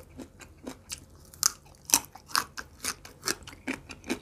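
Close-up crunchy chewing of a raw small purple eggplant, a crisp crunch about twice a second, the loudest bites about one and a half and two seconds in.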